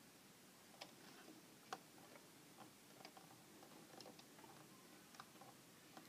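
Near silence with faint, scattered small clicks and taps from fingers working thread through the needle of a Singer sewing machine, the clearest about a second and a half in.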